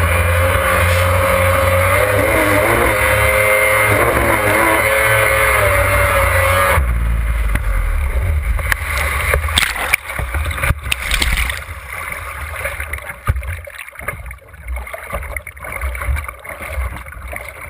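Yamaha Superjet stand-up jet ski's two-stroke engine running hard, its note rising and falling. About seven seconds in the engine note drops away into rushing, splashing water as the hull plunges under, with a few sharp slaps of water. The water sounds grow quieter and uneven toward the end.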